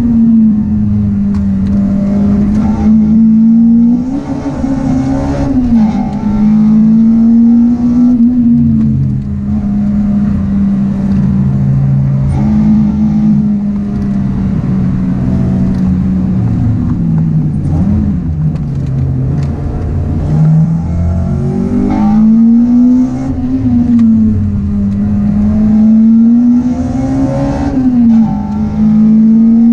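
Honda Integra DC5's four-cylinder engine, fitted with an aftermarket full exhaust and intake, heard from inside the cabin on track. The engine note climbs under hard acceleration and drops sharply several times at gear changes and braking, under steady road and wind noise.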